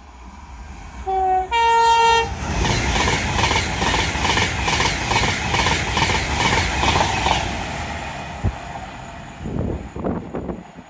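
A train on the main line sounds its two-tone horn, a short low note then a longer higher one, and then passes close by, its wheels clattering rhythmically over the rails before the sound fades away.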